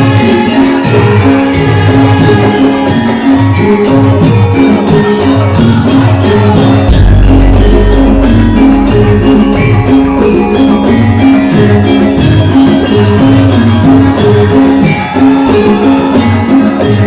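Loud live gamelan music for a lengger dance: sustained metallic pitched notes over a steady beat of sharp percussion strikes. A deep low note comes in about seven seconds in and holds for a few seconds.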